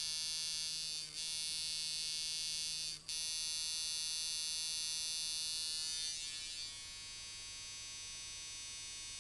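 Rebuilt Mickey Sharpz Micro Dial coil tattoo machine with Wes coils running as a liner at 5.5 volts, a steady buzz at about 157 cycles per second. It cuts out very briefly twice in the first three seconds, and goes a little quieter about six seconds in.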